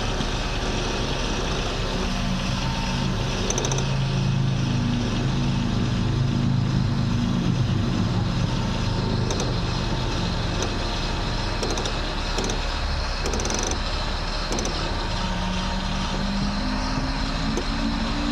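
Opel Astra H standing with its engine idling while the steering is turned. A strained hum rises and falls twice, and a few short sharp clicks stand out over the engine. These are the crunches from the steering or front suspension heard whenever the wheel is turned either way.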